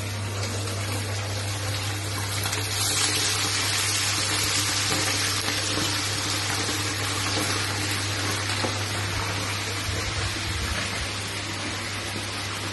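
Chicken pieces deep-frying in hot oil in a kadai: a steady, loud sizzle that swells about two and a half seconds in and eases slightly towards the end, over a constant low hum.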